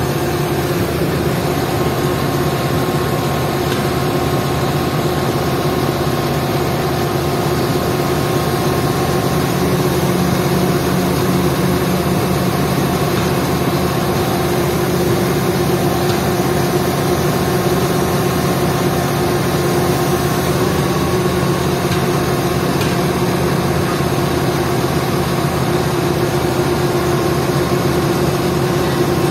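Diesel engine of an XCMG 50-ton mobile truck crane running loud and steady at an even speed.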